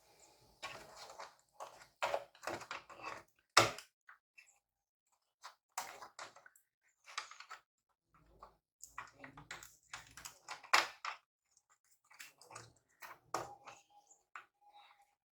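Irregular clicks, taps and knocks of laptop parts and screws being handled and fitted during reassembly, with a sharp knock about three and a half seconds in and another near eleven seconds.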